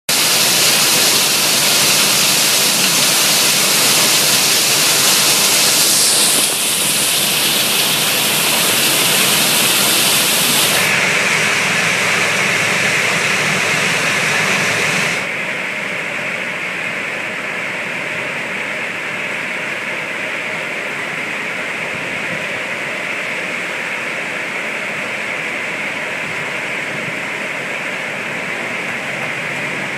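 Chip flinger hurling a steady stream of wood chips into a steel railcar: a loud, even rushing noise of machine and flying chips. The noise drops in steps about 6, 11 and 15 seconds in, then holds steady and quieter.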